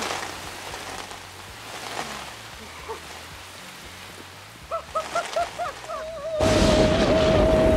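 Rain falling steadily. About five seconds in, a man gives a string of short rising whoops, then one long cry with a wavering pitch, while a loud rush of heavy rain swells up under it.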